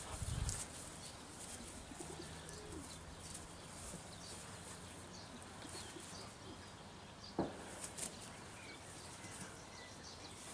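Birds chirping and calling faintly in the background, with two sharp knocks a little past halfway.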